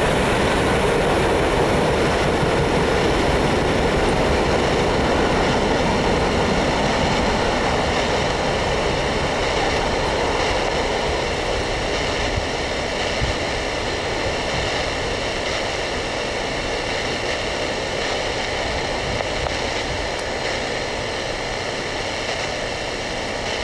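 Freight train of hopper cars rolling past on the rails, a steady rumble of wheels on track that slowly fades.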